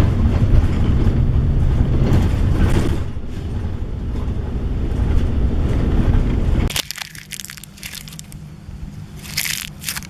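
Loud, dense crushing and crunching noise over a steady low hum, breaking off about seven seconds in. A few sharp crackles follow.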